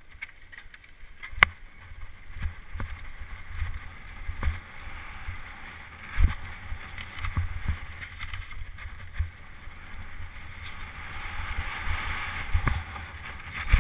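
Mountain bike riding fast down a dirt trail: steady rolling tyre noise and low wind rumble on the microphone, broken by sharp knocks and rattles of the bike over bumps, the loudest a little over a second in.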